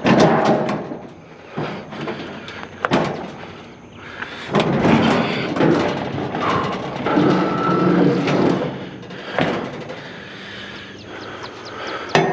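Repeated clanks, knocks and scraping of metal scrap being handled and dragged, with a brief ringing scrape in the middle.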